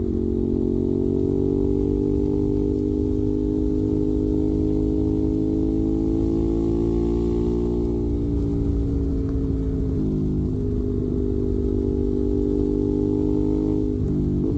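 Ducati Monster 821's Testastretta L-twin engine running through a Termignoni exhaust, at a fairly even engine speed with its pitch drifting gently up and down.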